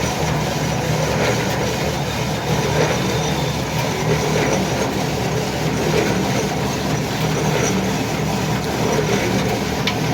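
Oil mill machinery running steadily, a continuous loud mechanical drone with a few faint ticks.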